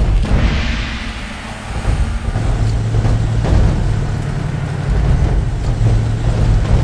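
Cars driving on a road: engine and tyre noise, with the whoosh of a car passing about half a second in.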